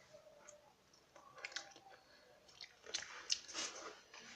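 A person chewing a piece of seafood from a jar in oil (mussels and squid tentacles) close to the microphone: soft, faint chewing with a few sharp mouth clicks, busier from about three seconds in.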